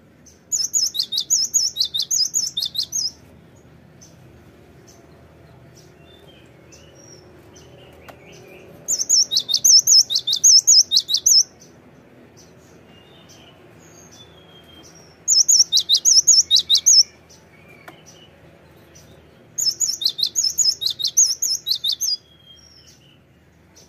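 Cinereous tit (gelatik batu) singing in four bursts of two to three seconds each. Each burst is a fast run of loud, high repeated notes, with a few faint call notes in the gaps between them.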